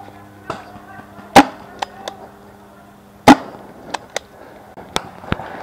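Pump-action paintball marker firing two loud shots close by, about two seconds apart, with fainter pops of other markers shooting around it.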